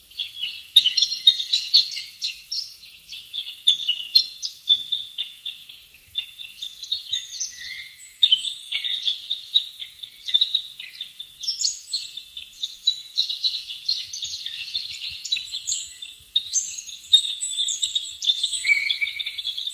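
Songbirds chirping and singing in a dense, continuous chorus of quick high notes.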